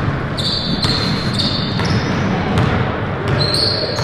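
Basketball being dribbled on a hardwood gym floor, bouncing about every half second, over the general noise of a game in the hall.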